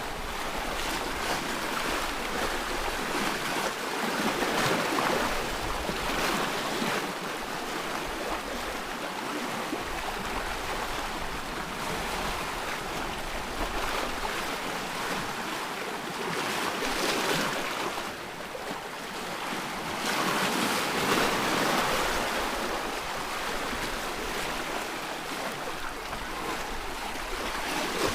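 Ocean waves breaking and washing on a shore, a steady hiss that swells and recedes every few seconds.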